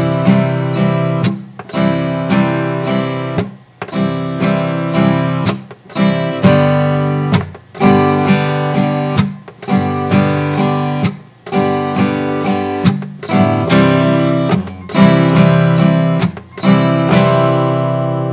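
Steel-string acoustic guitar strummed in a down, up-down-up pattern, with regular down strums muted by the heel of the hand landing across the strings, so that the chord cuts off sharply for a moment about every one and a half seconds. The last chord is left ringing near the end.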